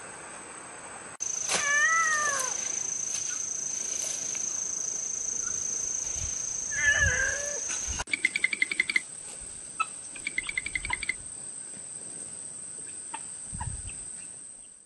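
A cat meows twice, several seconds apart, over a steady high drone of insects. Then ducklings peep in quick runs.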